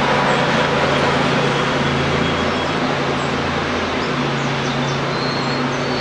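Steady mechanical rumble with a low, engine-like hum, loud throughout. Faint short high bird chirps sound over it, a few in the second half and a thin high note near the end.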